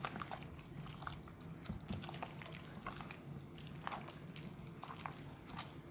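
Raw chicken being mixed into a thick yogurt-and-spice marinade in a bowl: soft wet squelches with small irregular clicks.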